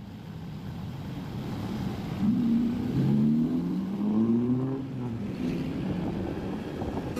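A motor vehicle engine rumbling and rising in pitch as it accelerates for a few seconds, then settling into a steadier lower rumble.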